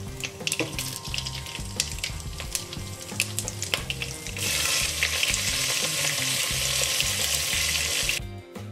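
Whole spices (cumin seeds, bay leaves, dried red chillies) crackling and popping in hot oil. About four and a half seconds in, slit green chillies hit the oil and set off a loud, dense sizzle, which cuts off shortly before the end. Background music with a low bass line plays underneath.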